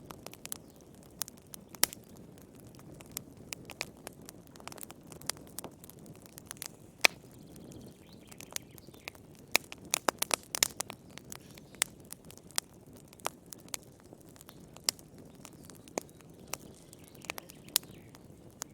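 Wood fire in a fireplace crackling, with irregular sharp pops and a quick flurry of them about halfway through, over a steady low rumble of burning.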